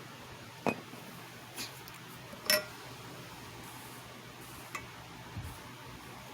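A few scattered light clinks and taps of small hard objects, the loudest about two and a half seconds in with a brief ring, over a steady faint hiss.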